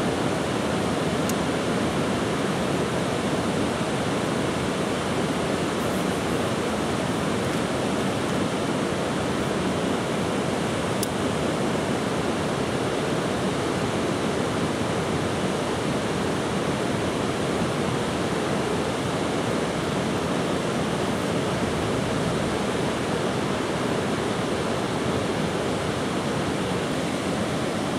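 Water rushing steadily through a river weir pool, a constant even noise.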